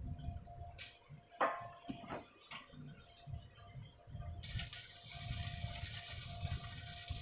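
Workshop metalworking noise: a few sharp knocks and clicks, then from about four and a half seconds a steady high hiss over a low rumble.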